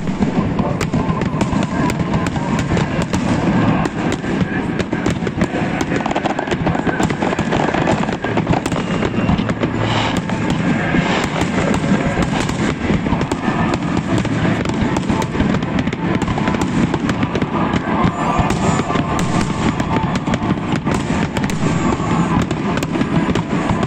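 Fireworks display: a dense, continuous volley of rapid cracks and bangs with no pause.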